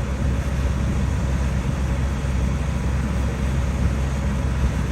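Combine harvester running steadily, being tried out after an error code that the crew puts down to low hydraulic fluid.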